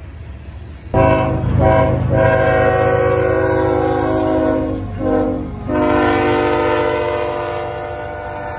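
Diesel freight locomotive's air horn sounding a chord over the train's low rumble. It starts about a second in and holds long, breaks briefly around the middle, then sounds again and slowly fades.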